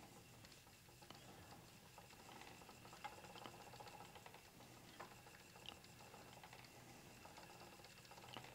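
Near silence: an Ashford Joy spinning wheel turning quietly as cat fur is drafted onto the bobbin, heard only as a few soft, irregular ticks over faint room hiss.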